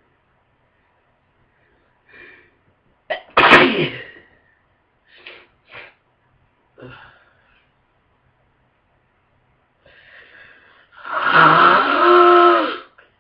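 A person with a heavy head cold gives one hard, explosive sneeze about three seconds in, followed by a few short sniffs. Near the end comes a long, loud nasal honk, a congested nose being blown.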